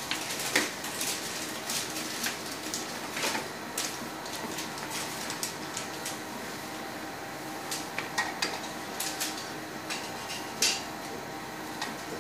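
Irregular plastic clicks and knocks as hemodialysis bloodline tubing is handled and pressed into the machine's blood pump and line clamps, over a steady background hum.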